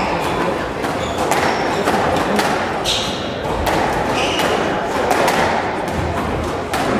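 A squash rally: the ball is struck by rackets and slams against the court walls in a string of sharp knocks, with footfalls on the wooden court floor.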